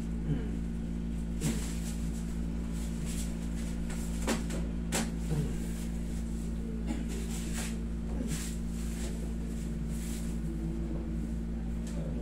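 Steady low hum of a wall-mounted air conditioner, with scattered short rustles and soft knocks of clothing and bodies shifting as a massage therapist grips and works a patient's painful shoulder.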